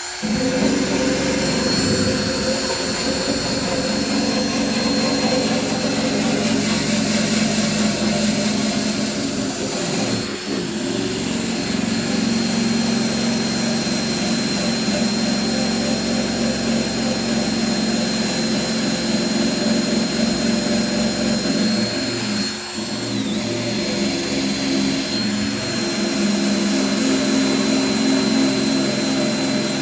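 Wire wheel spinning on a power tool and scouring old paint off a metal toolbox: a steady whirring scrape with a thin high whine. It eases off briefly about ten seconds in and again a little after twenty-two seconds.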